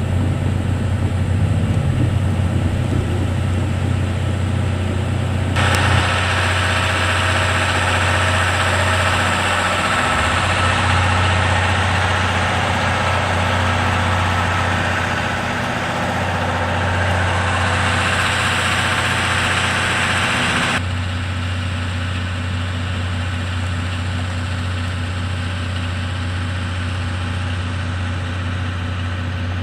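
C57 180 steam locomotive standing during shunting with a steady low hum, and a loud hiss of steam that starts about five seconds in and cuts off suddenly about fifteen seconds later.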